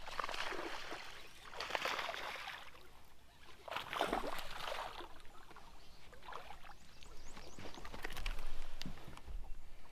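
A hooked bass splashing at the water's surface in several bursts as it is fought to the boat and landed.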